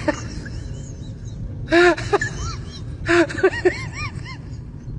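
Short, high-pitched cries that rise and fall in pitch, coming in bursts about two seconds in and around three seconds in. Each burst opens with a breathy rush, and a low rumble runs underneath.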